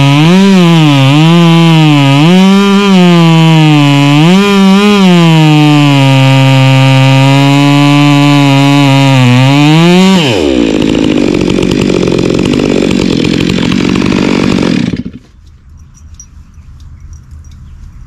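Two-stroke chainsaw cutting into an oak stump at full throttle, its engine note rising and falling as the cut loads it. About ten seconds in the throttle is released and the pitch drops to a rough idle, and the engine cuts off about fifteen seconds in.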